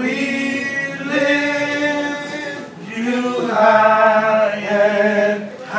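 Men singing a gospel chorus together a cappella, in two long held phrases with a short break between them; the second phrase is louder.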